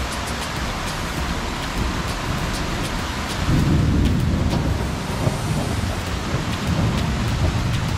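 Heavy rain hissing steadily, with sharp ticks of drops falling from the thatched roof's edge. About three and a half seconds in, a low rumble of thunder swells up and rolls on.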